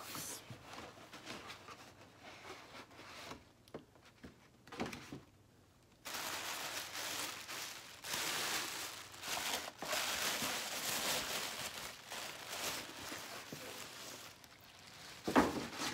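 Light handling of a cardboard gift box, then about six seconds in, tissue paper rustling and crinkling steadily for several seconds as it is pulled out of the box.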